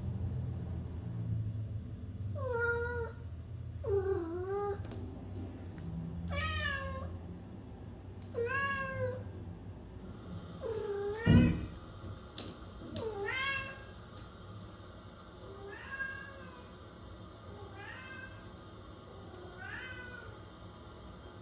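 Domestic cat meowing, about nine meows each rising and falling in pitch, roughly two seconds apart, the later ones fainter. A sharp thump about eleven seconds in is the loudest sound.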